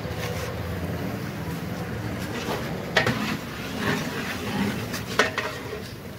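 Cooking utensils and bones knocking against steel pots, with a few sharp clinks about three seconds in and again about five seconds in, over a steady low rumble.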